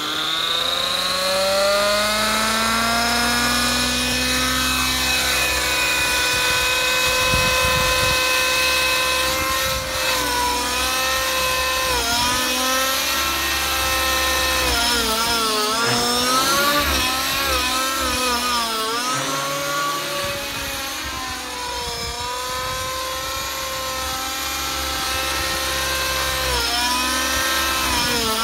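Align T-Rex 600 Nitro radio-controlled helicopter's glow engine and rotors spooling up, rising in pitch over the first few seconds, then running with a high, steady whine. From about halfway the pitch swings up and down as the helicopter lifts off and manoeuvres.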